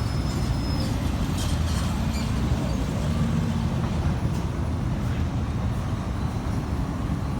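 A combat robot's spinner weapon and electric drive motors running during a pushing match: a steady low, gurgling rumble, the weapon turning slowly at reduced speed. The driver blames the slow weapon on a loose belt, with the teeth possibly stripped on the pulley. A faint high whine stops about a second in.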